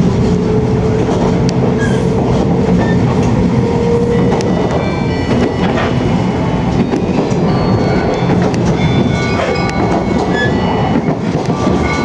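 Running noise of a JR 485-series electric limited express train heard from inside a passenger car: a steady rumble of wheels on rail with occasional clicks.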